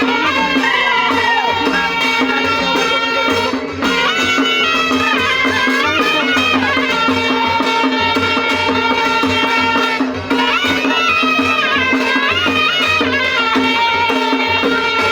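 Traditional folk music: a melody line with sliding, bending notes over a steady drone and a drum beat, pausing briefly twice.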